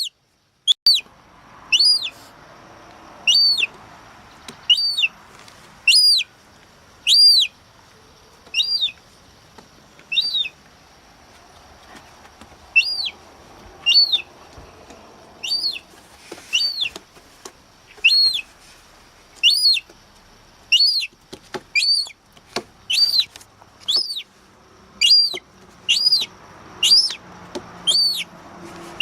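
A young gull chick peeping over and over: short, high, arched calls, each rising and then falling in pitch. They come roughly once a second and crowd closer together near the end.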